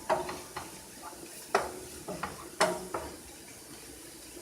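A utensil stirring and knocking against a pan of mushrooms and flour frying in butter, with several sharp irregular knocks over a faint sizzle.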